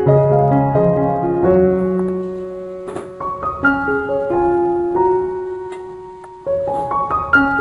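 Background piano music: a gentle melody of single notes over chords, each struck and left to fade, with a fresh chord about six and a half seconds in.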